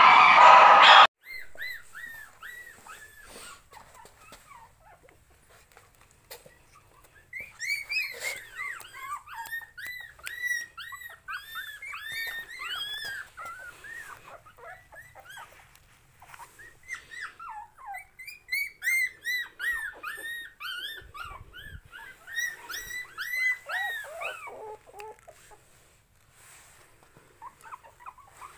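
Young puppies squeaking and whimpering: many short, high cries that rise and fall, coming in quick bouts with pauses between. Loud music plays for about the first second and cuts off abruptly.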